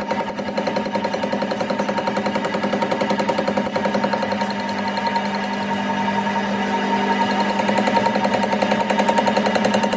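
Metal lathe running while its cutting tool turns a steel ring blank: a steady machine hum with a fast, even rattle from the cut, growing a little louder in the second half.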